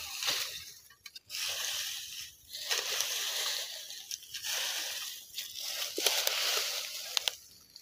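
A hoe scraping and raking dry leaf litter and soil in repeated strokes of about a second each, with a few sharp clicks near the end.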